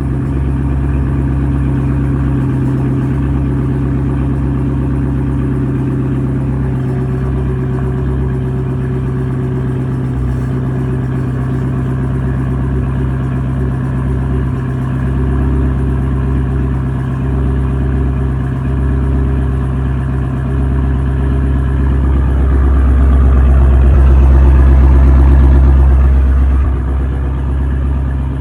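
Chevrolet Camaro SS V8 engine idling steadily, run during winter storage to keep the battery from going dead. It grows louder for a few seconds near the end, then drops back.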